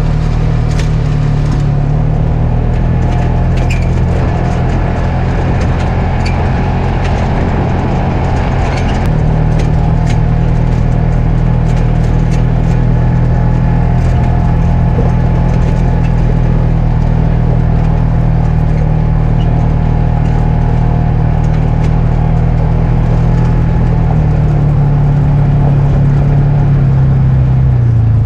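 Polaris RZR 570 side-by-side's engine running steadily while under way. It picks up slightly about a third of the way in and slows near the end.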